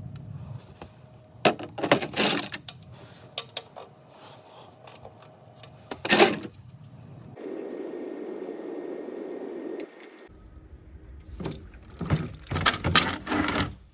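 Socket wrench clicking and metal clanking as the 17 mm oil drain plug is worked loose, with a few seconds of engine oil pouring from the drain hole into a drain pan midway.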